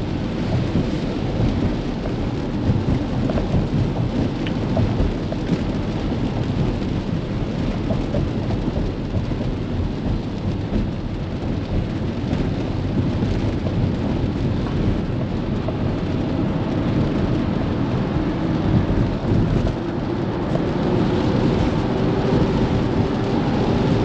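Rain on a Tesla Model X's windshield and body, heard inside the cabin, with a steady low rumble of tyres on the wet road. Near the end a faint whine from the electric drive rises in pitch as the car speeds up.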